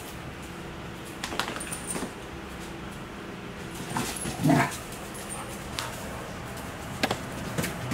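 Puppies play-fighting. One short dog vocalization about four and a half seconds in is the loudest sound, and scattered light knocks and clicks run through the rest.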